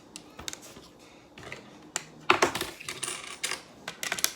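Checker pieces clicking and clattering against each other and the board as they are set out, with a cluster of clatter about two seconds in and several more clicks near the end.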